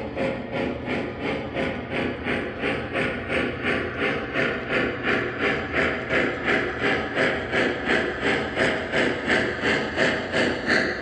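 Three-rail O-gauge model steam locomotive running with its onboard sound system chuffing steadily, about two to three hissing chuffs a second, over the low rumble of its wheels on the track.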